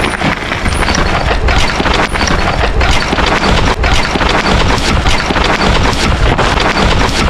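Mountain bike rattling and knocking as its tyres run over a rocky dirt trail, with heavy wind buffeting on the microphone.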